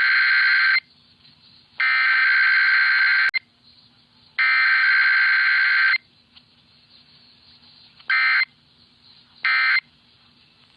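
Emergency Alert System SAME digital data bursts, a harsh buzzing warble. The end of one long header burst is followed by two more header bursts of about a second and a half each, then two short end-of-message bursts, with a third beginning right at the end. This is the coded header and end-of-message of a Required Weekly Test.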